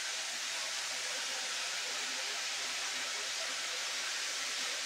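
Hot oil frying in a pan on the stove, a steady, even sizzle.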